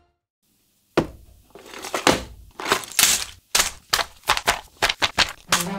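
A paper instruction booklet and plastic parts bags being handled: a quick series of sharp rustles and crinkles that come faster toward the end, after about a second of silence.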